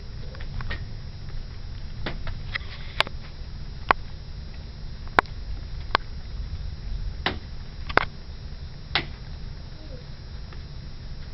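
Thunderstorm: a steady low rumble, with about seven sharp, scattered ticks like drips landing on a hard surface.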